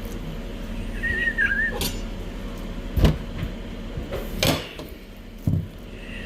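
A short, wavering, whistle-like high tone about a second in, then a few scattered knocks and clatters of kitchen items, the loudest about three seconds in.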